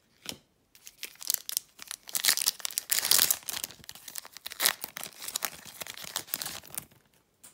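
Foil wrapper of a trading-card pack being torn open and crinkled by hand: a run of crackling rips and rustles, loudest about two to three seconds in, ending just before the end.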